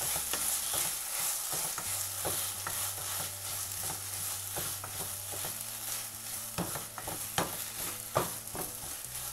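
Sliced onions and ginger-garlic paste sizzling in coconut oil in a nonstick kadai, stirred with a wooden spatula that scrapes and taps against the pan over and over, with a few louder scrapes near the end.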